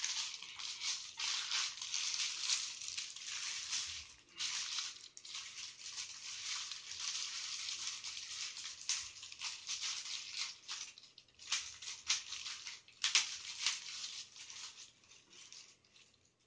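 A clear plastic bag crinkling and rustling as it is handled around a tower speaker: irregular crackling with a few short pauses, thinning out near the end.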